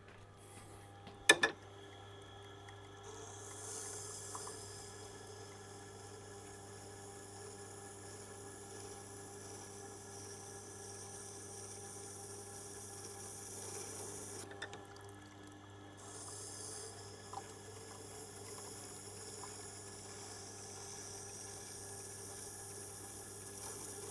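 Hard tool steel of an oboe reed scraping tool being ground on a Tormek wet grinding wheel: a steady wet hiss in two long passes with a short break near the middle, over the grinder's constant low motor hum. A sharp click about a second in.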